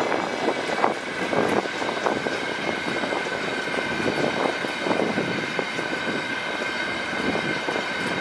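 Freight train of open gondola wagons rolling past: a steady rumble of steel wheels on rail with irregular clacks. A steady high whine runs over it.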